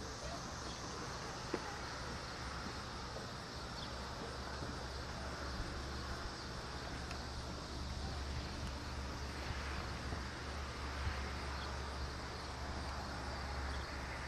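Great Western 2-10-0 No. 90 steam locomotive working in the distance as a low, steady rumble that grows somewhat louder about halfway through, with insects chirping.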